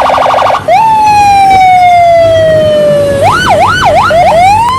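Electronic police siren: a short burst of fast pulsing tones, then one long tone that slowly falls in pitch. About three seconds in it breaks into quick up-and-down wails and ends on a rising sweep.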